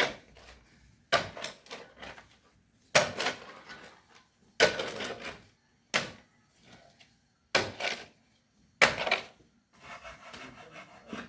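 A shovel scraping into sand or concrete mix, over and over: a sharp scrape-and-strike followed by a short gritty rasp, about once every one and a half seconds, seven times.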